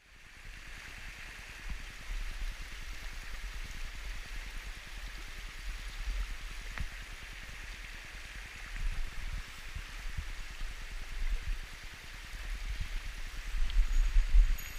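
Mountain stream rushing steadily over rocks, with an uneven low rumble and bumps on the camera microphone that grow stronger near the end.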